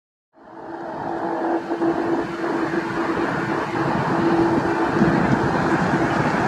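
Jet engines of a landing Airbus A350-941 (Rolls-Royce Trent XWB turbofans) on final approach, producing a steady rushing roar with a steady humming tone through it. The sound fades in from silence just under half a second in.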